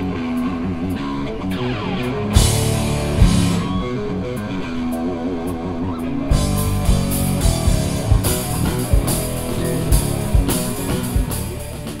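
Outro music: rock with guitar and drums. A cymbal crash comes about two and a half seconds in, the full drum beat comes in around six seconds, and the music starts to fade at the very end.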